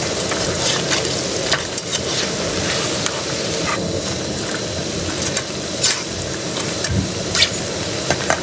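Onion and okra pakoras sizzling as they deep-fry in hot oil in a wok, while a perforated metal skimmer turns them and clicks against the pan now and then.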